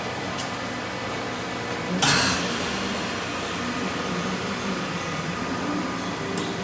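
Double-chamber vacuum packaging machine running with a steady hum. About two seconds in there is a sudden loud hiss that fades within half a second, and the hum carries on.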